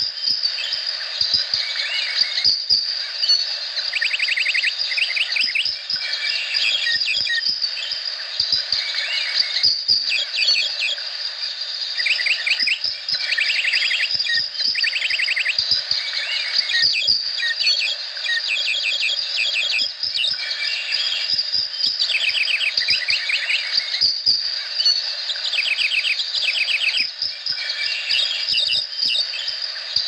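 Tropical rainforest animal chorus: a steady, high-pitched insect drone with short trains of quick chirping calls repeating every second or two.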